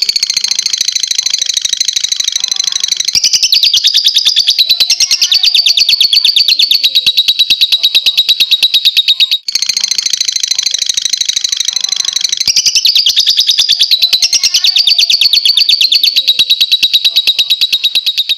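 Lovebird singing 'ngekek': a long, unbroken run of rapid, shrill chattering notes, several a second. The run breaks briefly about halfway through, then starts again.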